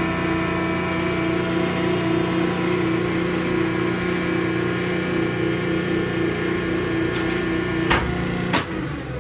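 A motor running with a steady hum. Two sharp knocks come near the end, after which it is quieter.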